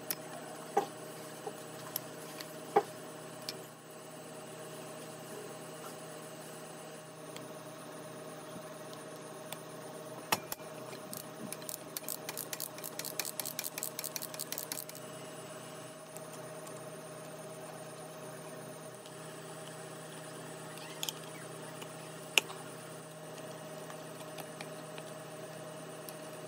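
Scattered sharp metallic clicks and knocks, with a few seconds of rapid clicking near the middle, over a steady hum.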